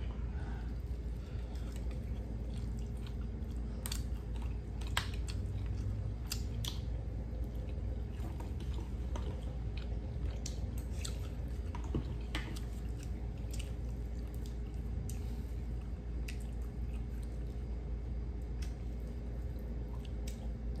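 Close-up chewing and small irregular clicks of people eating crispy fried fish by hand, over a steady low hum.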